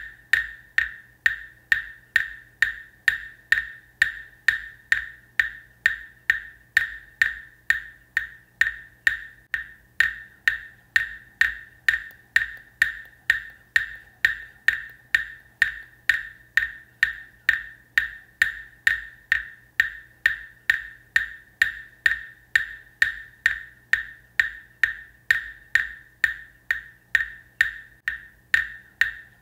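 Muyu (Buddhist wooden fish) struck at a steady, even tempo of about two strokes a second. Each stroke is a short hollow knock that rings at the same pitch and dies away quickly.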